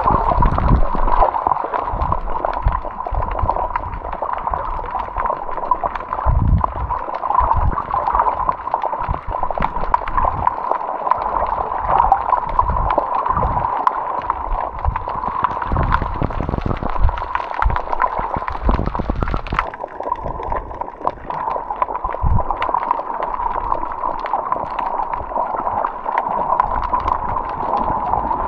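Water gurgling and sloshing close to the microphone, with irregular low knocks and bumps, typical of a camera used while snorkeling.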